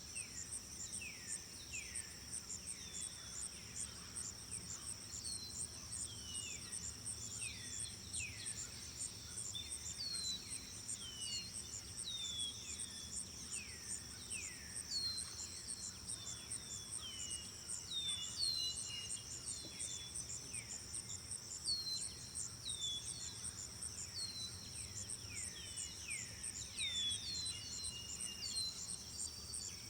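Outdoor nature ambience of insects trilling: a steady high, finely pulsing chorus, with many short falling chirps scattered over it.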